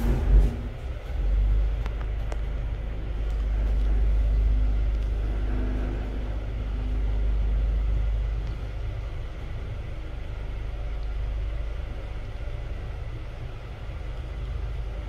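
A 1980s Hitachi lift: a thump just after the start as the doors finish closing, then a steady low rumble of the car travelling in the shaft, easing off toward the end.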